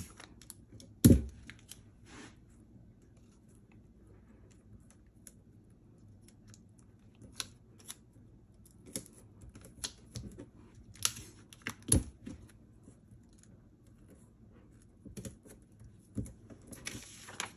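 Clear sticky tape pulled and torn from a desktop dispenser and pressed onto printed paper pattern pieces: scattered clicks, taps and paper rustles. There is a sharp knock about a second in and another at about twelve seconds, and a longer rasping rustle near the end.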